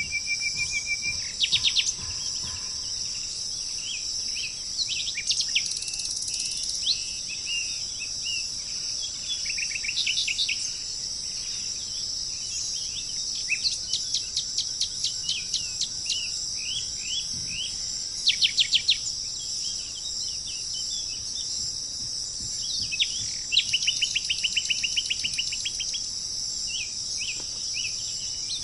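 Songbirds chirping and trilling, with quick runs of repeated notes, over a steady high chorus of insects such as crickets.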